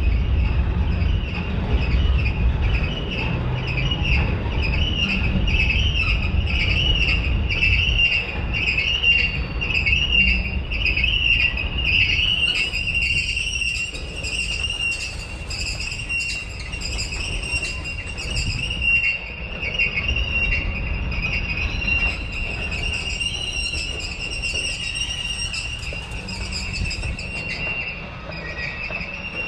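Freight cars (tank cars and covered hoppers) rolling past on the rails with a steady low rumble. Over it runs a high whine that pulses about once a second, then settles into a steady tone about halfway through.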